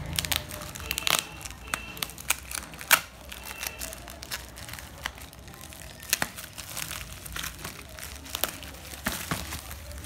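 Plastic bubble wrap crinkling and crackling as hands handle it and unwrap it from a small boxed package, in irregular sharp crackles, the loudest about three seconds in.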